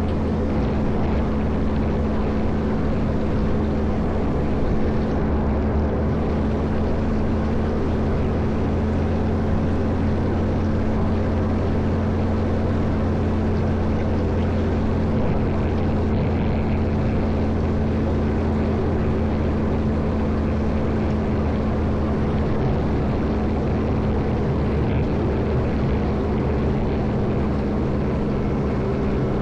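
Caterpillar 140M motor grader's diesel engine running steadily as it plows snow, holding an unchanging engine note.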